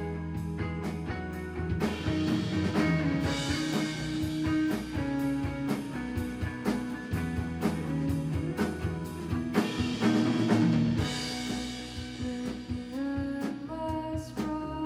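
Live rock band playing an instrumental passage: electric guitar and bass over a steady drum beat, with cymbal hits building around the middle.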